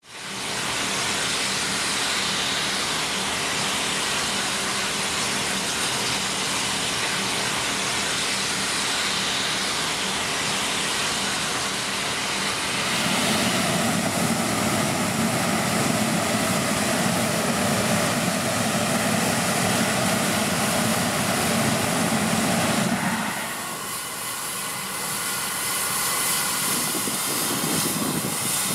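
Victorian Railways K-class steam locomotive K163 standing in steam, venting steam with a loud, steady hiss. The hiss grows heavier and deeper about halfway through, then eases about five seconds before the end.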